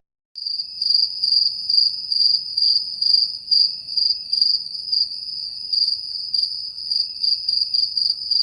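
Crickets chirping: a high, steady trill that swells and fades about twice a second, then cuts off suddenly at the end. It is the stock 'crickets' sound effect used to mark an awkward silence.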